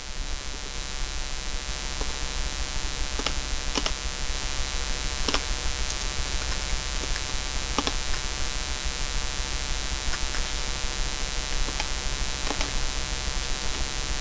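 Steady electrical buzz and hum with many overtones, with a dozen or so sharp clicks scattered irregularly through it.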